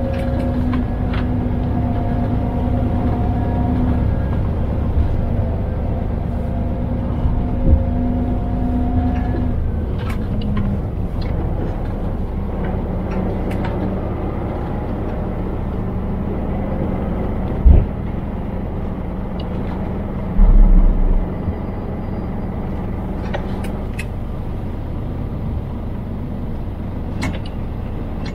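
Scania truck driving along: steady diesel engine drone with road and tyre noise, heard from inside the cab. The engine note drops a little about ten seconds in, and a few short low thumps come through, the loudest in the second half.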